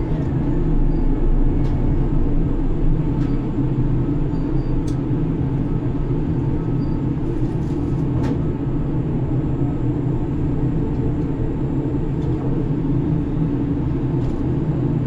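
Steady drone of a grab crane's machinery heard inside the operator's cabin, a low hum of several tones that holds level, with a few faint clicks on top.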